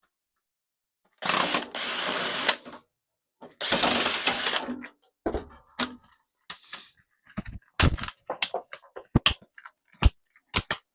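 A power tool runs in two bursts of about a second and a half each, followed by a string of sharp clicks and knocks of metal parts being handled as a microwave is taken apart.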